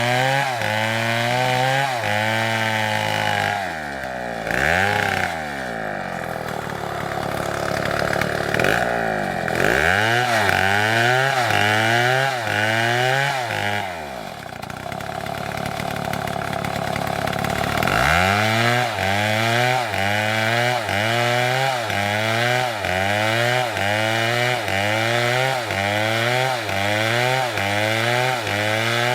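STIHL two-stroke chainsaw cutting wood. The engine's pitch repeatedly dips and recovers about twice a second as the chain works through the cut, with a steadier stretch midway.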